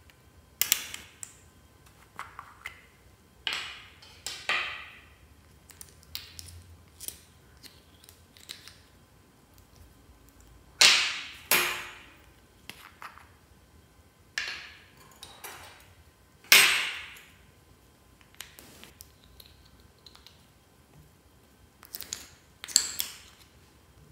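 Fluffy slime being pressed, folded and stretched by hand, giving a series of irregular sharp pops, clicks and crackles as air pockets burst, several of them louder snaps.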